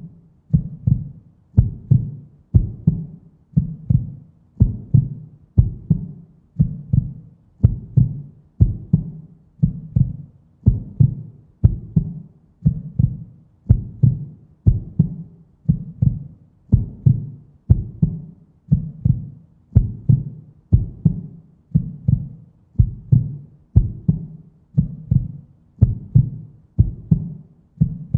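Heartbeat sound effect: a steady lub-dub rhythm, each beat a close pair of low thumps, about one beat a second.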